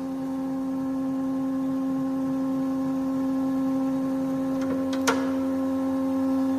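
Hammer A3 31 planer-thicknesser with its three-knife cutterhead running, a steady hum. A single sharp click about five seconds in.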